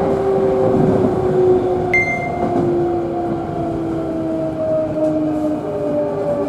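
Hankyu electric train slowing into a station: the motors' whine falls slowly in pitch as the train brakes, over steady running noise, with one short high beep about two seconds in.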